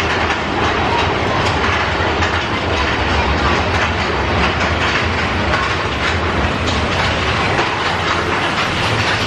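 Big Thunder Mountain Railroad's mine-train roller coaster cars rumbling and clattering steadily along the track, a continuous low rumble with scattered clacks.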